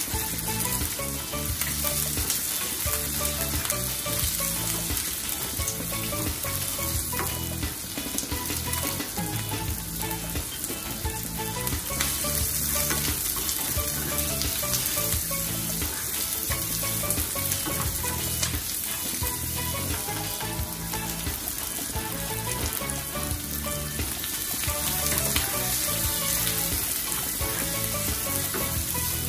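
Chopped onion, ginger and garlic sizzling as they fry in hot oil in a non-stick pan, with a wooden spatula stirring them.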